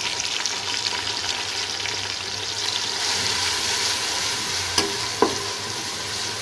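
Browned onions, chopped tomato and ginger-garlic-green chilli paste sizzling in hot oil in a metal pot while a metal spoon stirs them. The spoon knocks sharply against the pot twice near the end.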